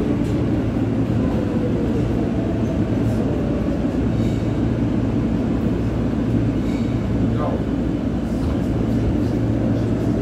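New York City subway car running on the L line, heard from inside the car: a steady rumble of wheels on rail, with a faint falling tone in the first few seconds.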